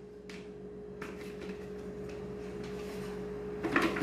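A few light plastic clicks and knocks from the blender jar and lid being handled, with a brighter cluster near the end as the jar is lifted off its base. A steady low hum runs underneath.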